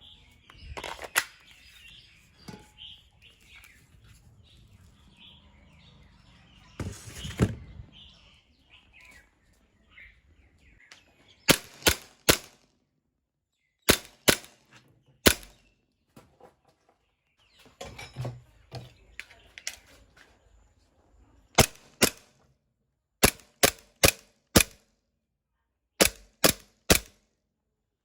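Airsoft BB gun firing sharp, dry shots in quick groups of two to four, about fifteen in all over the second half, after a quieter stretch with one brief louder noise about seven seconds in.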